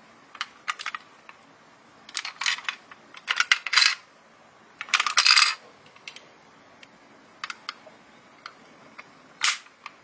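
Clicking and clattering of a toy ambulance being handled and turned over in the hands above a box of toy cars: three short bursts of rattling in the first half and one sharp click near the end.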